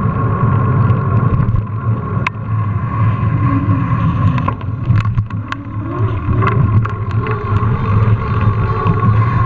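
Mountain bike riding on pavement: steady wind buffeting the GoPro's microphone over tyre rumble, with a few sharp rattles and clicks from the bike, about two seconds in and again around five to seven seconds in.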